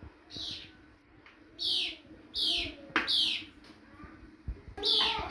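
A bird calling in short, loud chirps, each sweeping downward in pitch, about five of them at uneven intervals. A sharp click comes about three seconds in.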